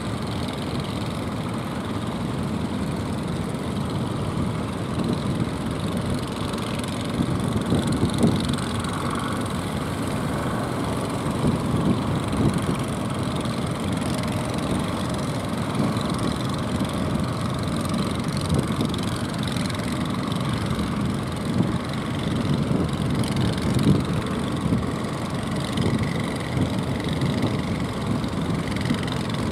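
Engine of a motorised jukung outrigger fishing boat running steadily while towing, a low continuous sound.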